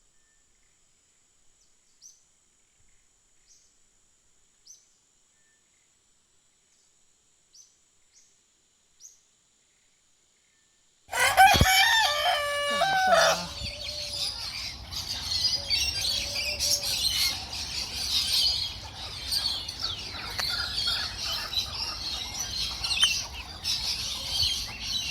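Aviary birds: for the first half only a few faint, short high chirps. About halfway through, a sudden loud call from a larger bird lasts about two seconds, and then many small birds chatter and chirp without a break.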